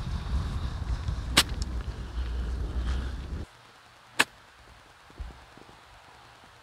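Two crisp clicks of a golf club striking the ball on short chip shots, about three seconds apart. Wind buffets the microphone through the first strike and stops abruptly just before the second.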